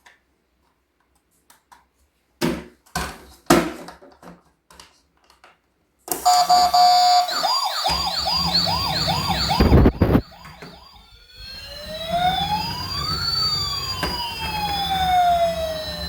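Plastic clicks and knocks as a toy ambulance is handled. About six seconds in, its electronic siren starts with a brief steady tone, then a fast yelping warble of about three sweeps a second. After a thump it changes to slow rising and falling wails.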